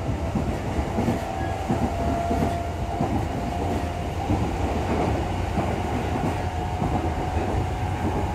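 Interior running sound of a JR East E233-6000 series electric train motor car at speed: a steady rumble of wheels on rail with occasional rail-joint clicks, and a thin steady traction-motor whine that edges slightly up in pitch as the train gathers speed.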